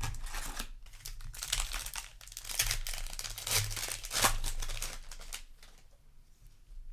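Foil wrapper of a Magic: The Gathering play booster pack crinkling and tearing as it is opened, for about five seconds, then dying down to faint handling.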